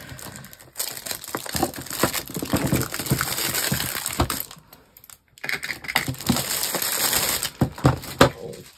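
Thin plastic packaging bag crinkling and rustling as a clear plastic storage box is pulled out of it, with sharp clicks and knocks of hard plastic. It pauses briefly about five seconds in, and the loudest clicks come near the end.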